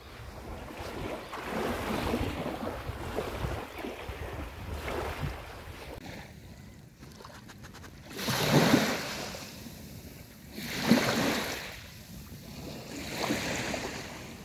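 Wind blowing across the microphone over small waves washing onto a Baltic Sea beach, the sea nearly calm. The noise swells in several surges, the loudest about eight and eleven seconds in.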